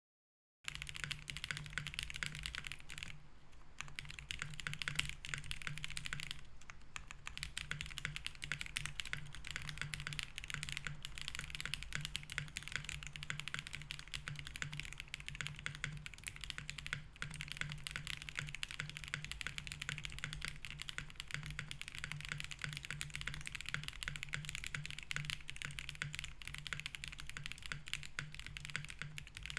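Continuous fast typing on a Link65 mechanical keyboard with BSUN Roselle switches, FR4 plate and case foam, a dense run of key clicks with a couple of brief pauses. A steady low hum sits under the typing.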